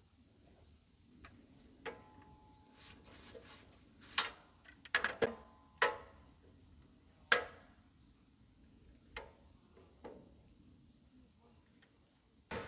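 Irregular sharp knocks and clacks, a few leaving a brief ringing tone, loudest in a cluster from about four to seven and a half seconds in.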